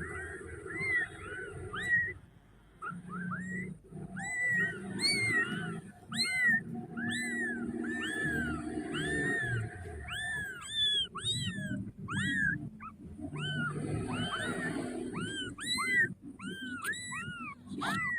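Young kittens mewing over and over, calling for their mother: a rapid string of short, thin, high cries that rise and fall in pitch, several voices overlapping at times.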